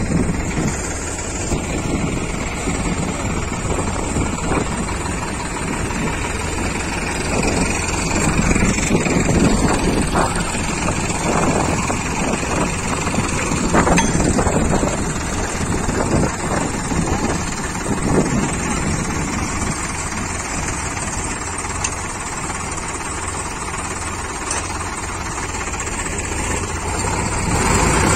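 Diesel engines of two Sonalika tractors working under load as one, with a rotary tiller attached and stuck in wet mud, is towed out by the other. The engines run continuously with a low rumble, louder for a stretch in the middle.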